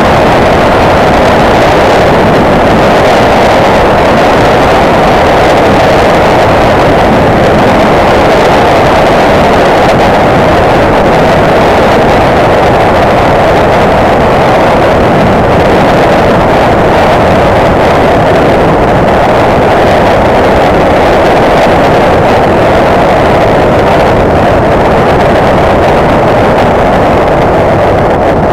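Motorcycle riding at a steady cruise: the engine and rushing wind on the microphone make a loud, unchanging noise.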